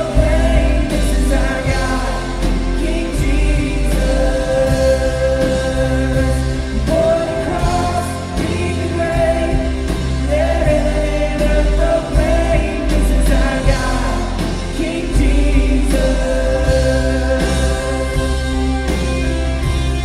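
Live worship band playing a song, with several voices singing held lines over bass, drums with cymbal strikes, guitars and keys, recorded from the room.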